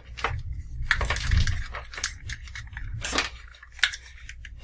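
Irregular clicks and clatter of hard plastic being handled, as a pair of headphones is fitted and hooked up to a 3D-printed speaker horn.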